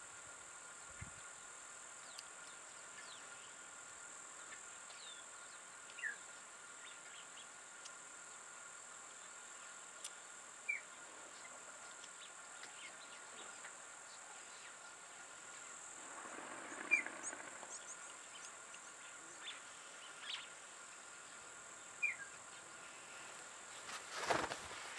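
Insects buzzing steadily in a high, even drone, over a softer steady tone, with a few brief bird chirps scattered through. A short cluster of knocks comes near the end.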